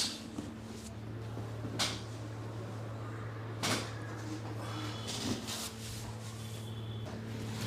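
Two short, sharp knocks about two seconds apart, over a steady low hum, with softer rustling later on.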